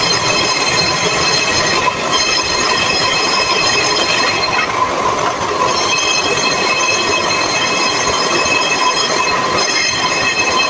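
Homemade bench-mounted table saw running and ripping a wooden strip. Its loud, high whine drops out and comes back a few times as the wood is fed through.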